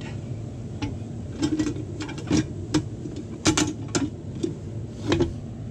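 A manual tire bead breaker's lever and shoe knocking and clanking against a steel wheel and tire, about ten irregular knocks, as it is set on and worked to break the tire's second bead.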